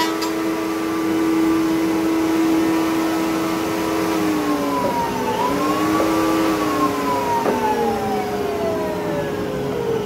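Bosch router in a router table running at full speed, then switched off about four seconds in and spinning down in a long falling whine. A steady hum from another machine continues underneath.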